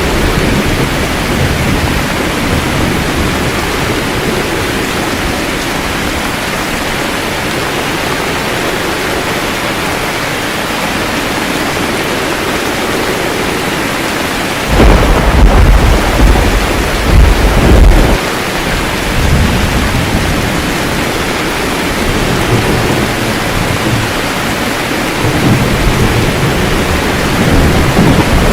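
Steady heavy rain with rolls of thunder. A loud clap rumbles from about fifteen seconds in for about three seconds, and fainter low rumbles follow near the end.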